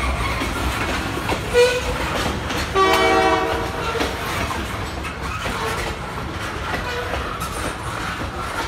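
Freight train of covered hopper cars rolling past, with the steady rumble and clack of wheels on the rails. A brief squeal comes about one and a half seconds in, and a train horn sounds a short chord about three seconds in.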